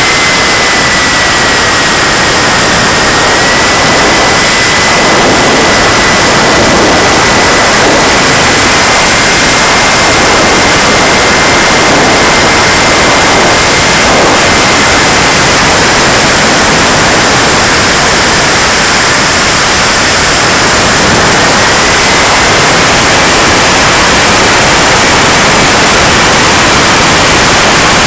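KingTech K80 model jet turbine running: a loud rushing hiss with a thin high whine that drifts slightly up and down in pitch.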